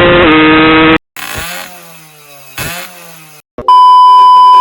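A motorcycle engine held at high revs, very loud and steady, cut off abruptly about a second in. It is followed by quieter engine sounds falling in pitch, then a loud steady beep for the last second.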